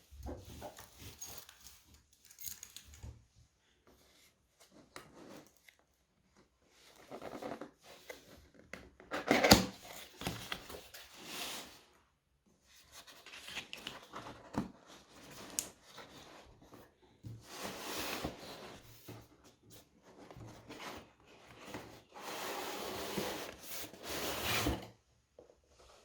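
Packaging being handled and opened: irregular rustling, tearing and scraping in bursts, with a few knocks, the loudest about a third of the way in.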